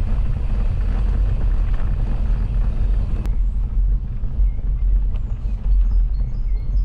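Heavy low rumble of wind buffeting the microphone while riding a bicycle, with a single sharp click a little after three seconds in.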